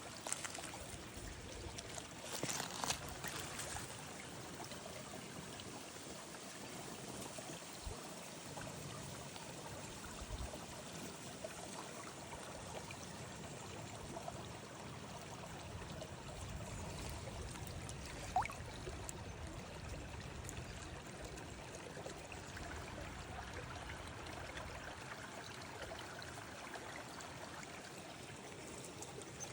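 Creek water flowing and trickling steadily over stones, with a few brief clicks.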